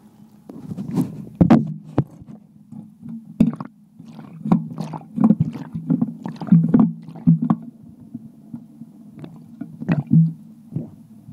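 Muffled sloshing and rubbing with many irregular knocks, picked up by an iPhone's own microphone while the phone is being washed.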